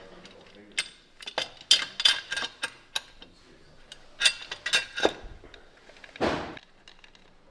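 Irregular sharp metal clinks and taps of a wrench and valve cover bolts as the bolts are run down into the engine head, with a brief scraping rush about six seconds in.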